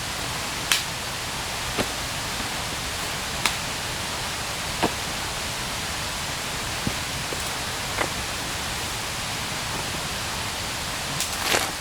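Steady rush of a small stream flowing, with a few sharp clicks scattered over it and a small cluster of them near the end.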